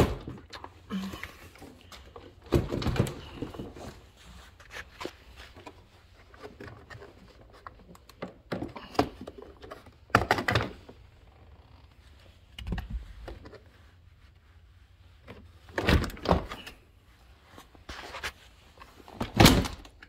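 Plastic interior door trim panel of a 2013 Kia Optima being pried and pulled off the door: its retaining clips pop loose and the panel knocks against the door in a series of separate thunks and clatters.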